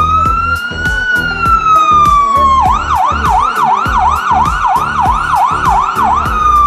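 Fire truck siren, electronic: a rising wail that peaks about a second in and slowly falls, then switches to a fast yelp of about three sweeps a second, and goes back to a falling wail near the end.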